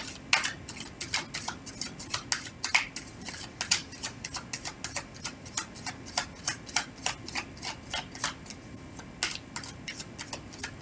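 A tarot deck being overhand-shuffled by hand, with a steady run of quick clicks of the cards, about four a second.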